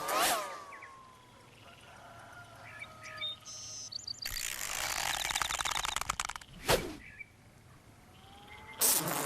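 Cartoon sound effects. A swooping glide comes right at the start, then faint short chirps. About four seconds in there are about two seconds of rapid fluttering buzz, then a single sharp knock just before seven seconds, and another fluttering burst near the end.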